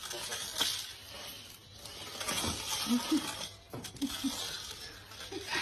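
Plastic hula hoop scraping and knocking on stone paving as a dachshund drags it along in its mouth, with a sharp knock about half a second in and scattered scrapes after.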